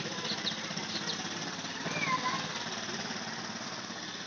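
An engine idling with a steady, even low throb, with a few faint bird chirps over it.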